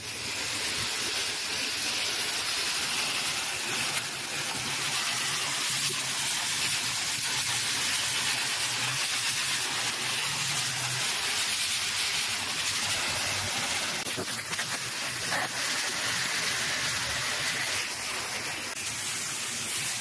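Garden hose with a pistol-grip spray nozzle spraying a steady jet of water through the aluminium fins of an outdoor air-conditioner condenser coil, flushing out clogging dirt and grass.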